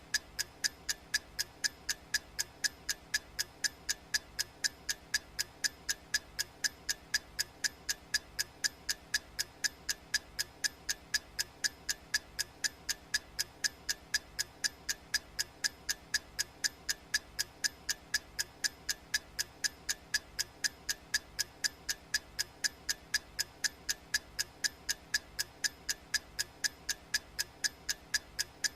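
Clock ticking sound effect: sharp, evenly spaced ticks at about two a second, each with a short high ring.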